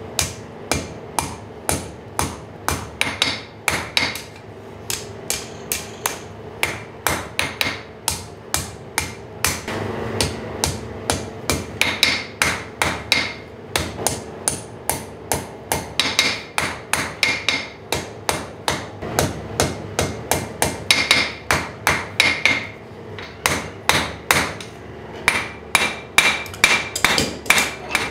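Hand hammer striking the top of a hot 10 mm square steel bar stood on end on the anvil, upsetting its heated bend into a sharp corner. Steady blows about three a second, each with a short metallic ring, broken by a few brief pauses.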